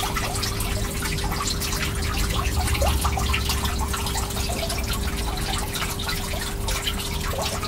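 Water trickling and dripping steadily, many small drops in quick succession, over a steady low hum.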